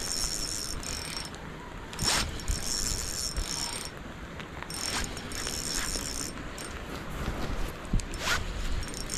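Okuma Epixor XT 20 spinning reel whirring in spells of a second or two while a hooked steelhead is played in, with a few sharp clicks between.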